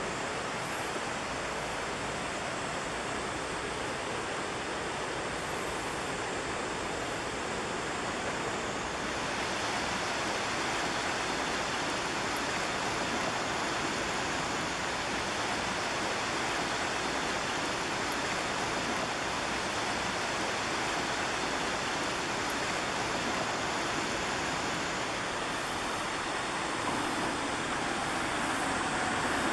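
Steady rush of a shallow, rocky river running over rapids, its tone shifting slightly about a third of the way in and again near the end.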